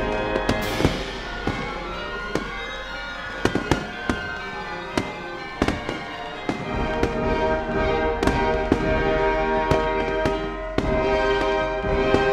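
Fireworks going off in an irregular run of sharp bangs and pops, with a short crackling hiss about a second in, over music with sustained held notes.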